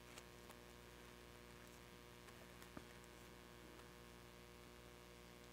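Near silence: a faint steady electrical mains hum, with a couple of soft clicks.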